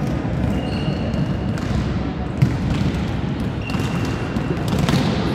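Volleyballs being struck and bouncing on an indoor court, a few short thuds over steady hall noise, the sharpest about halfway through, echoing in a large sports hall.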